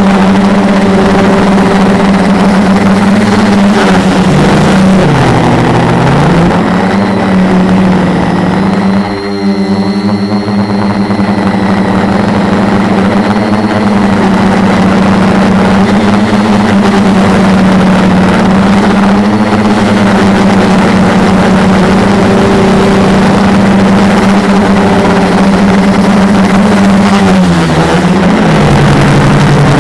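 Quadcopter's four Multistar 2212 920kv brushless motors spinning 10x4.5 props, heard through the onboard camera as a loud steady hum. The pitch sags and recovers several times as the throttle changes, most deeply about nine seconds in.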